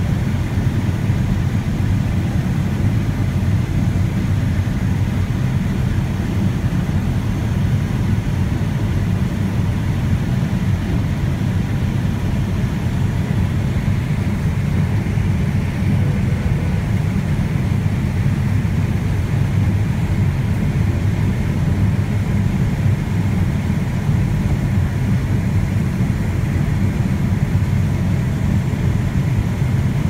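John Deere S770 combine running steadily while harvesting corn, heard from inside the cab as an even, low rumble.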